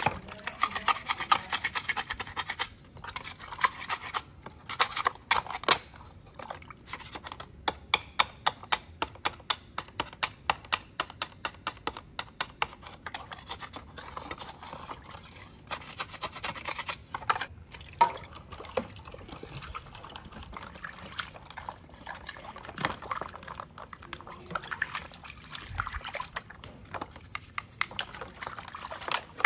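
Metal paint scraper scraping old coating off a black telescope tube section held in soapy water, in runs of quick repeated strokes, with water splashing and dripping.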